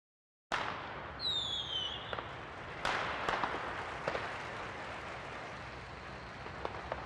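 A soundtrack starts abruptly: a steady hiss with a few sharp cracks or bangs. About a second in there is a short whistle falling in pitch.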